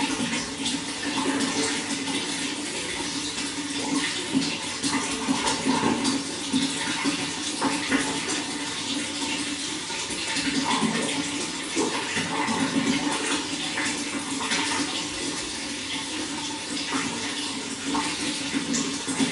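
Water running in a steady, continuous flow.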